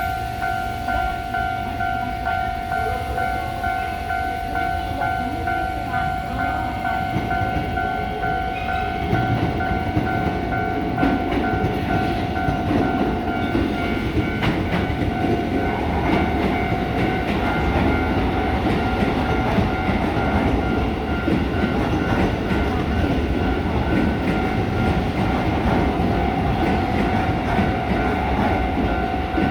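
Japanese level-crossing warning bell ringing in a steady pulsing tone, while an electric train passes over the crossing, its wheels rumbling and clattering over the rail joints, louder from about nine seconds in.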